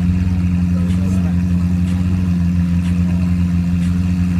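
Car engine running at a steady speed: a loud, constant low drone that holds one pitch without revving up or down.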